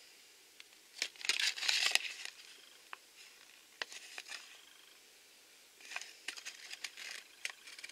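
Folded paper leaflet rustling and crinkling as it is handled and turned over, loudest in a burst about a second in and again in a shorter run near the end, with a few small clicks and taps in between.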